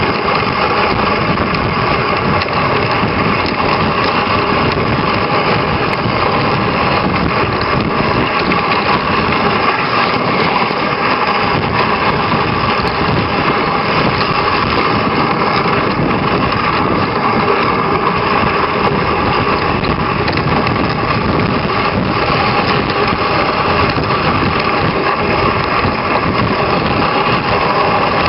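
Steady noise of a dog sled moving over a packed snow trail, heard from a camera riding on the sled: runners hissing along the snow, with an uneven low rumble from the bumps.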